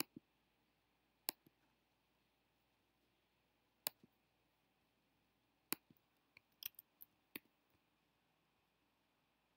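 Computer mouse clicks, single or in quick press-and-release pairs every second or two, then a run of several in quick succession about two-thirds of the way through, against near-silent room tone.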